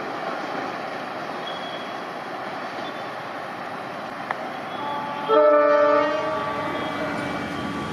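Indian Railways locomotive horn sounding over a steady running noise: a sudden loud blast about five seconds in that drops after under a second to a quieter held tone.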